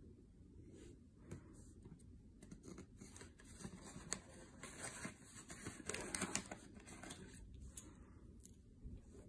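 Faint handling noise: the iPod mini's cardboard box trays and its white cables being moved and rustled, with scratchy scraping and a few light clicks, busiest in the middle.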